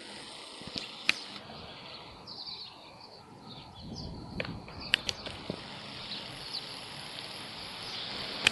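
Outdoor city street ambience: a steady background noise with scattered sharp clicks, a few short high chirps about two to three seconds in, and a low rumble swelling about four seconds in.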